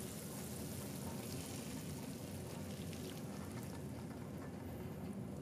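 Thin, hot caramel poured from a pot into a parchment-lined metal cake pan: a quiet, steady liquid pouring noise.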